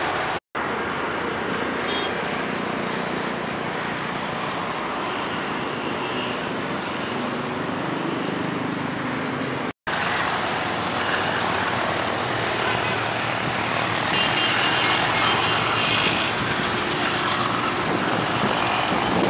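GE ES43ACi diesel-electric locomotive running as it approaches with a freight train, a steady rumble mixed with surrounding traffic noise. The sound cuts out completely twice for an instant, about half a second in and about ten seconds in, and is a little louder after the second cut.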